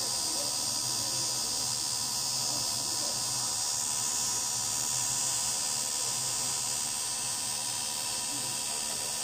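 Two TIG welding arcs burning at once on an aluminium tank's circular seams, giving a steady, unbroken buzzing hiss over a low hum.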